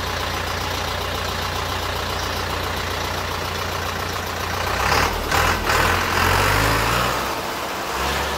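YTO EF 804 tractor's diesel engine running steadily at idle, then revved up about five seconds in, its pitch rising and held higher for a couple of seconds before dropping back near the end.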